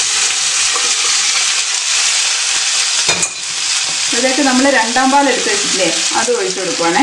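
Cooked green gram (mung beans) hitting hot oil and fried shallots in a nonstick wok, sizzling loudly as they are stirred with a wooden spatula. The sizzle dips briefly about three seconds in, then carries on.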